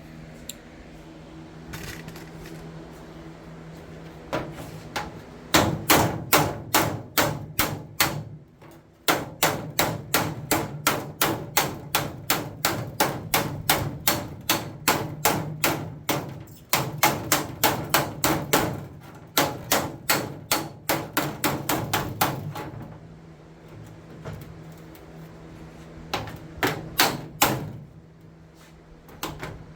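Hammer beating dents out of an aluminum race car body panel laid over a wooden 2x6. The blows come in quick runs of about three a second, with a short break about nine seconds in, a longer pause later, and a last few blows near the end.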